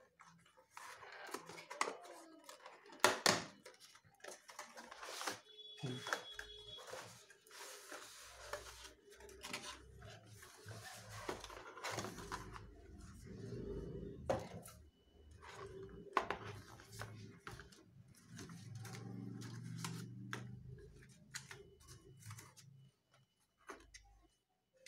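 Cardboard box and plastic tray being handled as a boxed pair of neckband earphones is unpacked: irregular rustling, sliding and light taps. A low rumble runs underneath through the middle part.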